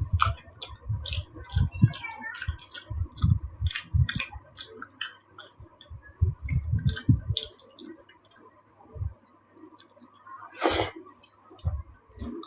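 Close-miked chewing and wet mouth clicks of a person eating, with irregular soft low thuds of the jaw working. One louder, short noisy burst comes near the end.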